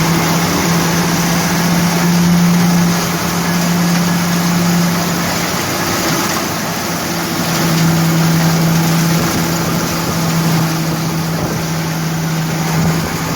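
Self-propelled thresher (patos) running, its engine hum mixed with the steady rushing clatter of the threshing mechanism. The hum fades for a couple of seconds around the middle, then returns.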